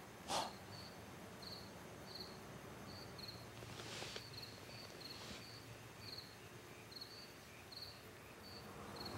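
Crickets chirping steadily, short pulsed chirps repeating evenly about every two-thirds of a second. A short, sharp hiss-like sound about half a second in is the loudest thing, with two softer noisy sounds around four and five seconds in.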